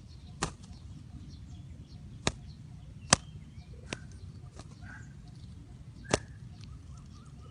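Sharp clicks or snaps, five at irregular intervals, over a low steady rumble, with faint short high chirps between them.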